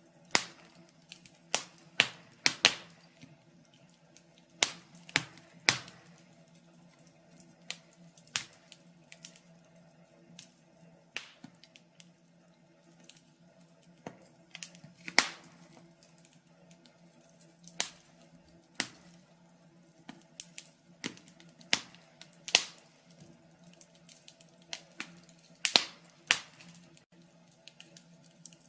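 Log fire crackling in a fireplace: irregular sharp pops and snaps, a few of them loud, over a faint steady low hum.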